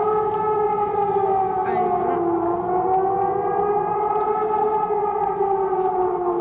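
Civil defence siren sounding a steady alert tone that wavers gently down and back up in pitch.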